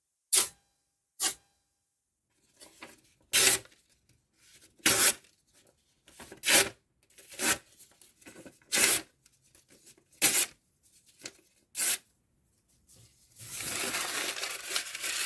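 Sheet paper being torn in a series of short, sharp rips, about nine of them a second or two apart. Near the end comes a longer, continuous rough rustle of paper.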